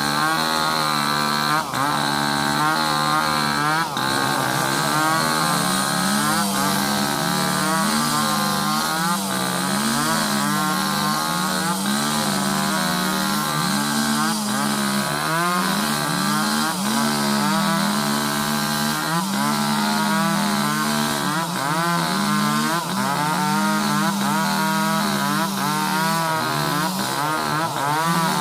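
Two-stroke chainsaws cutting through sengon wood, the engine pitch rising and dipping continually as the chains bite and ease off in the log.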